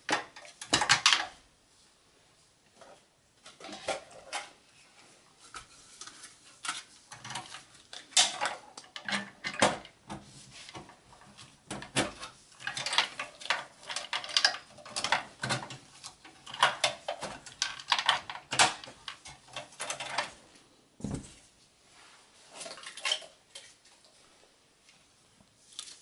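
Handling noise from a small-form-factor desktop PC's sheet-metal case and plastic drive caddies: irregular metallic clicks, rattles and scrapes as parts are pried, seated and clipped in. There is one dull knock about 21 seconds in.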